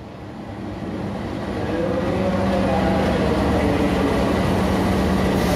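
A CC 206 diesel-electric locomotive (GE C20EMP) hauling a passenger train in along the platform. Its engine hum and the train's rumble grow louder from about a second in and then hold steady as the locomotive goes by.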